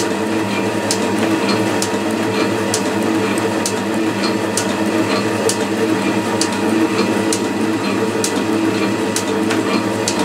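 Metal shaper taking a light cut across a tool post blank: a steady machine drone with a sharp tick at each stroke of the ram, a little more than once a second.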